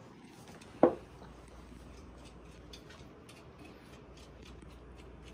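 A single sharp knock about a second in, a bump from handling the camera or the microphone gear, followed by a few faint small clicks and ticks.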